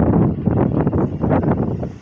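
Wind buffeting the microphone: a loud, gusty low rumble with irregular gusts, dropping off briefly near the end.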